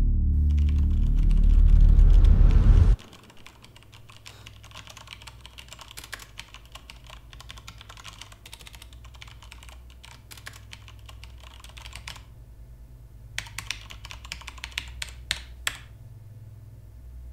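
A loud, deep rumble that cuts off suddenly about three seconds in, then fast typing on a backlit mechanical keyboard. The typing stops briefly past the middle, then a handful of louder, sharper key strikes follow, over a low steady hum.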